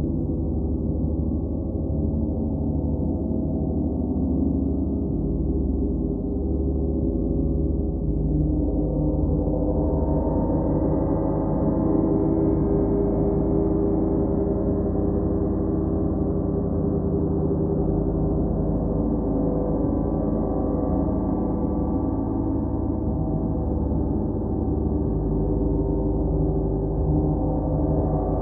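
Large hanging gongs played continuously, a sustained wash of many overlapping deep humming tones with no gaps between strokes. The wash swells brighter about ten seconds in and again near the end.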